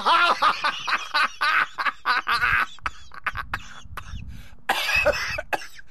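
A man laughing: a quick run of short, voiced bursts for the first couple of seconds that then trails off, with a second short bout of laughter near the end.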